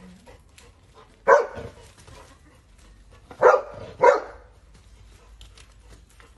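Golden retriever barking: three short, sharp barks, one alone and then two in quick succession about two seconds later.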